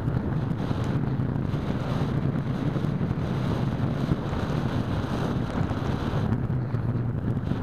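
Steady wind rushing over the microphone of a keychain camera carried on an EasyStar 2 model plane in flight.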